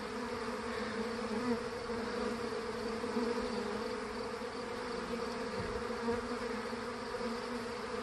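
Steady hum of many honeybees flying around a pine branch, the swarm's leftover bees still clustered where the swarm hung.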